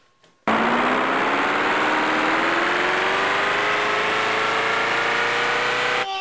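A loud motor starts abruptly and runs with a slowly rising whine, then cuts off suddenly near the end: the Super Plunger XL3000 running.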